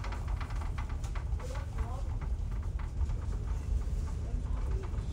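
Steady low rumble of a passenger ferry's engines carried through the ship under way, with faint voices of people nearby and scattered light clicks.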